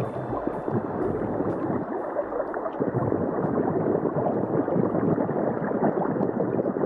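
Water bubbling and gurgling continuously, a dense crackling noise with nothing in the upper range.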